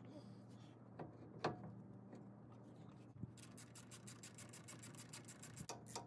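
A few light metal knocks as the new hub assembly is handled against the knuckle. Then, from about halfway, a hand ratchet clicking fast and evenly, roughly eight clicks a second, as the hub's mounting bolts are run in.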